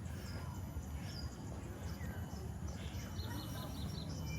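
Scattered bird chirps and calls over a steady low background rumble, with a quick run of short high notes about three and a half seconds in.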